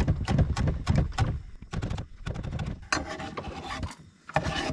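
Knife chopping on a cutting board: a quick run of sharp knocks densest in the first second and a half, then scattered taps and scrapes.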